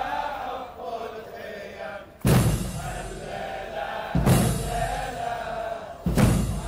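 Mourners chanting together during zanjeel, Shia chain flagellation. Three times, about every two seconds, comes a sharp crash of iron chains struck against backs in unison.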